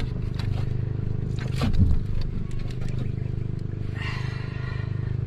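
Small outrigger fishing boat's engine running steadily at low speed, with clicks, rattles and a louder knock about two seconds in as a needlefish is handled and unhooked on board.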